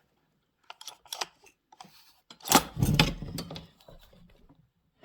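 Light metallic clicks, then a louder clunk and clatter, from hands working on a chainsaw with its muffler removed.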